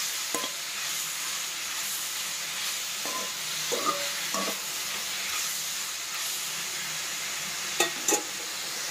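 Onions, tomatoes and ridge gourd sizzling in oil in a kadai as they are sautéed, with a steady hiss, while a metal slotted ladle stirs them and scrapes and knocks against the pan several times, loudest twice close together near the end.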